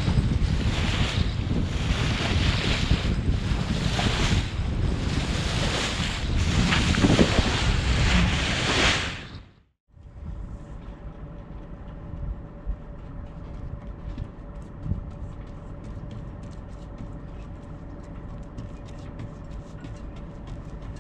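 Wind buffeting the microphone and water rushing past the hull of a sailboat under way, in pulsing gusts. It cuts out about ten seconds in and gives way to a much quieter steady hum with scattered faint ticks.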